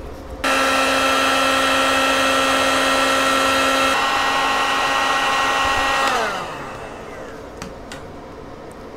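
Handheld heat gun shrinking heat-shrink tubing over a soldered wire joint: it is switched on about half a second in, runs with a steady fan whine and rush of air, then is switched off about six seconds in, its pitch falling as the fan spins down.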